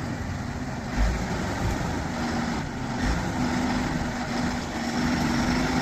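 Heavy engine running steadily, as of a crane truck, with a constant hum and two low thuds about a second and about three seconds in.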